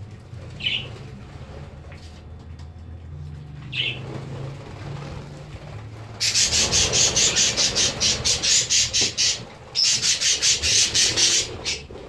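Budgerigars chirping twice, then rapid rhythmic wing flapping as the birds take off from the tray, in two loud spells a few seconds long with a short break between.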